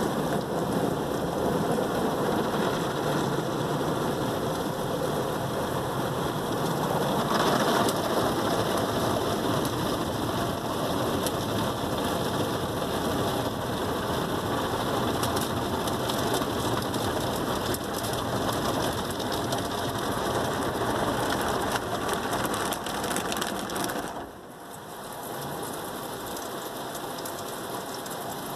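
Automatic car wash spraying water onto the car, heard from inside the cabin as a dense, rain-like drumming on the windshield and body. About twenty-four seconds in it drops sharply to a lighter, steady wash.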